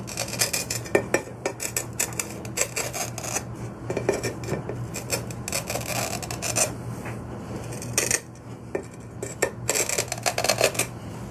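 Steel-wheel glass cutter scoring the corners of a square glass bottle worked against it in a wooden jig: a gritty scratching in repeated strokes, with a short lull about eight seconds in.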